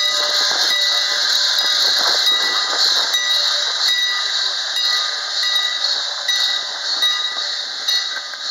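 Steam locomotive No. 89 hissing steadily as it moves off along the track, with a continuous high hiss of escaping steam.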